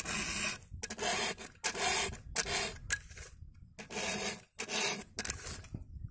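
Hand file rasping across the cutters of a chainsaw chain to sharpen it, in a run of repeated strokes about every half second to three-quarters of a second, stopping near the end.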